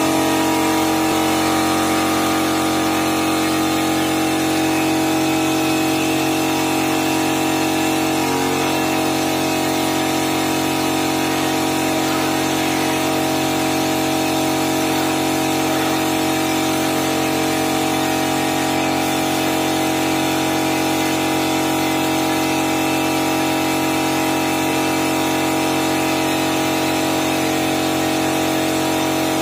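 Air compressor running steadily with a constant mechanical hum, under the hiss of a gravity-feed paint spray gun spraying.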